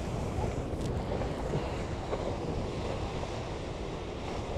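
Strong wind buffeting the microphone over the steady rush of water along the hulls of a Hobie 16 catamaran sailing fast in a gale.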